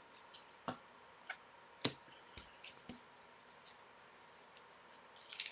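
Trading cards being handled and shuffled on a table, giving a few soft, sharp clicks and taps in the first three seconds.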